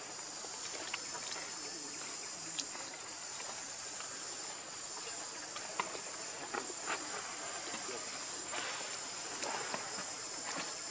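Steady high-pitched drone of insects in the forest, with a few short clicks and small rustles.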